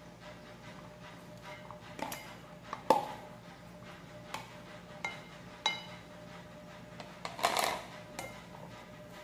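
Silicone spatula knocking and scraping against a plastic tub as shredded carrot is tipped into a salad bowl: a few sharp taps, the loudest about three seconds in, then a short scraping rustle near the end as the spatula moves the salad in the bowl.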